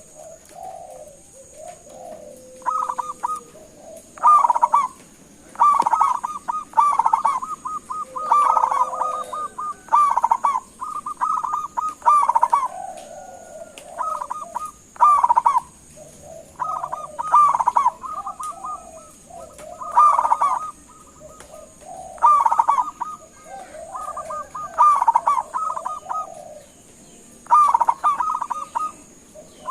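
Zebra dove (local perkutut) cooing: repeated phrases of rapid, staccato notes, a new phrase every two to three seconds.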